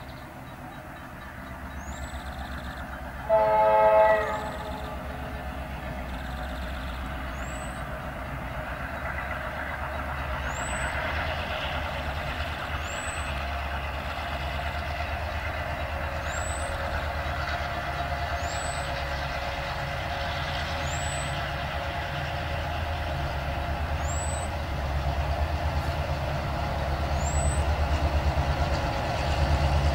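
Diesel locomotive horn sounding one short chord about three seconds in. The locomotives' low engine rumble then grows steadily louder as the train approaches.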